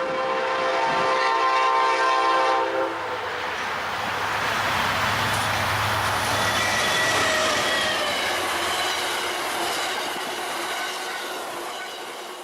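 A train horn sounds a chord of several notes and cuts off about three seconds in, then the train passes with a rush of rolling noise and wheel clatter that fades away near the end.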